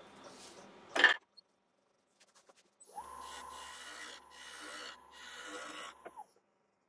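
A single loud knock about a second in, then a wood lathe running with a steady whine while a gouge cuts the spinning sycamore bowl blank in three short passes, about three seconds in; the cutting stops near the end.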